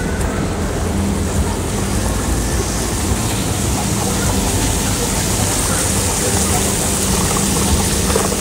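Outdoor city ambience in an open paved plaza: a steady rushing noise with a low rumble and a faint steady hum underneath.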